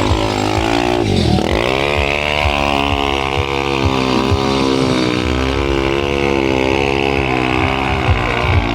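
Motorcycle engine revving hard during stunt riding: the revs drop sharply about a second in, climb straight back, then hold high and waver.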